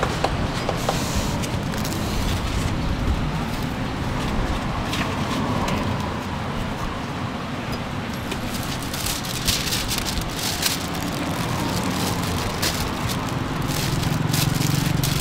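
Steady street traffic noise with a low hum, with scattered short clicks and knocks, most of them a little past the middle.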